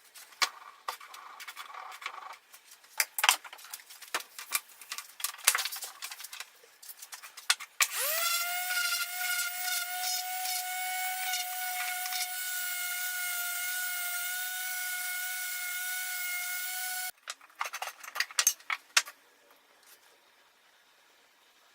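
A series of clicks and knocks, then a small power tool's motor spins up quickly about a third of the way in and runs with a steady whine for about nine seconds before cutting off, followed by a few more clicks.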